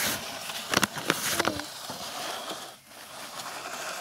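Sharp knocks and scraping of plastic on gritty ground in the first second and a half, then a steady scraping hiss.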